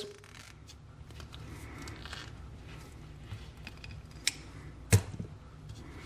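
Hand crimping pliers squeezed shut on an insulated butt splice connector, crimping two twisted wires into it. Two sharp clicks near the end, about half a second apart, the second louder.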